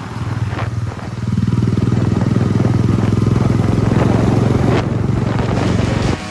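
Motorcycle engine running while riding, getting louder about a second in and then holding a steady note, with wind rushing past.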